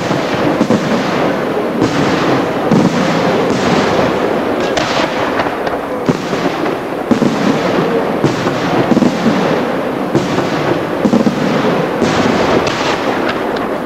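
Aerial firework shells bursting in rapid, unbroken succession, one sharp report running into the next.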